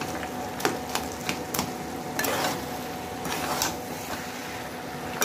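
A spatula knocking and scraping in a kadhai as grated papaya and soya chunks are stirred and mashed while they fry, with a faint sizzle underneath. A few sharp knocks come in the first two seconds, then softer scrapes.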